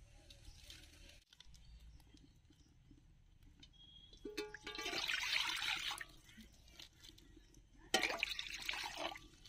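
Water poured from a steel mug into an empty metal wok, splashing and trickling on the pan's metal. It comes in two pours, the first about four and a half seconds in and the second about eight seconds in.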